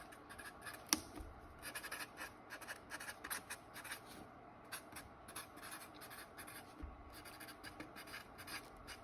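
Someone writing by hand: many short, quick scratching strokes, with a single sharp click about a second in.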